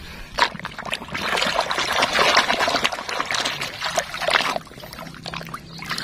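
Water splashing and trickling as a plastic toy vehicle is swished and dipped by hand in muddy water to rinse off mud, with water dribbling off it. The splashing is busiest from about half a second in until about four and a half seconds, then eases off.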